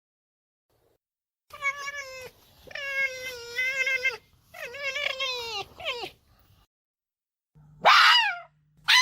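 An animal calling: several drawn-out, wavering, whining calls in a row, then after a pause two short, louder, harsher cries that fall in pitch near the end.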